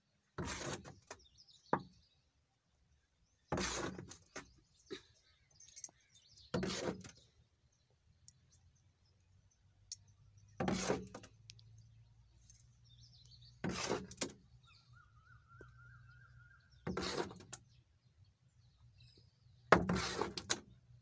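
A ladle scooping thick palm-jaggery syrup from a wide metal pan, scraping and clinking once about every three seconds as the syrup is poured into coconut-shell moulds.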